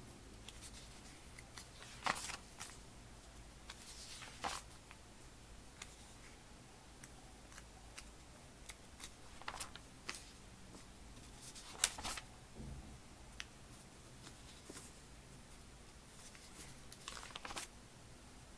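Glossy catalog pages being turned and handled: short paper swishes and rustles every few seconds, with small clicks between them.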